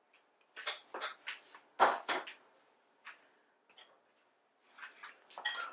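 A spoon clinking and knocking against a bowl and spice containers as ingredients are measured out. Short, separate clinks come irregularly, the loudest about two seconds in, with a quick cluster near the end.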